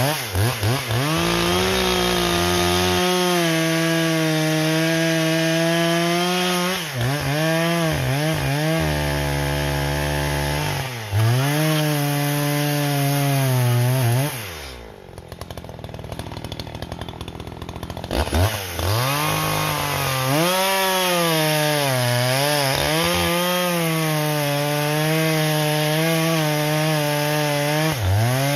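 Echo CS-620PW two-stroke chainsaw cutting through shortleaf pine logs, its engine pitch sagging under load and rising again as the throttle and cut change. About halfway through it drops to idle for a few seconds, then revs back up and bites into wood again.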